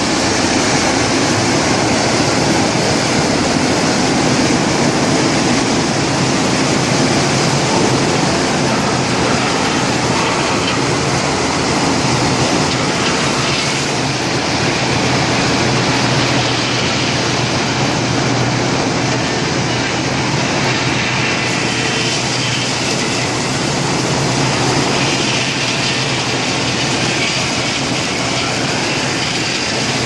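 Industrial wood chipper line and a wheel loader's diesel engine running together as a loud, steady machine din with a low hum underneath, while scrap wood is fed to the chipper.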